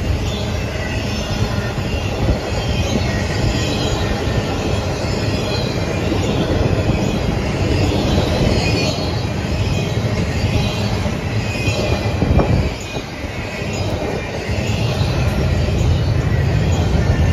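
CSX intermodal freight train's cars rolling past close by: a steady loud rumble of steel wheels on rail, with high-pitched wheel squeal running through it. The noise dips briefly about two-thirds of the way through, then picks up again.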